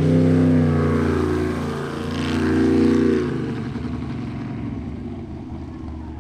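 Sprint boat engine racing through the course at high revs, its pitch shifting with the throttle. About three seconds in the engine note drops as it backs off, and the sound fades away.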